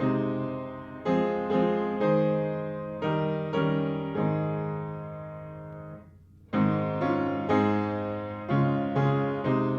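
A hymn tune played on piano, chords struck at a steady pace and each left to ring and fade. A long chord about six seconds in dies away into a brief gap before the playing resumes.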